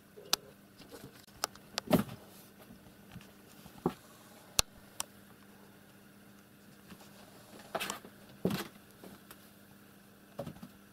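Cats scuffling inside a wooden box cage with a wire grille: scattered knocks, taps and rattles, the loudest about two seconds in, over a faint steady hum.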